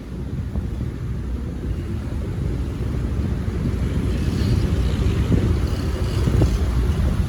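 Low, steady rumble of road traffic, growing a little louder in the second half.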